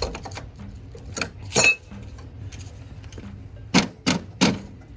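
Metal clinks of a combination wrench and hardware against a steel zero-turn mower deck as parts are worked off: a few sharp clinks spread out, then three in quick succession near the end.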